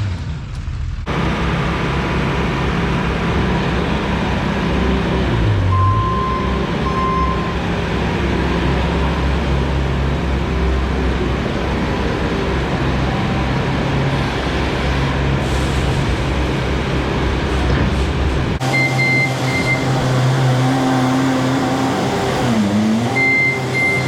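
Truck engine running steadily, the sound changing abruptly about three-quarters of the way through, with short high beeps near the end.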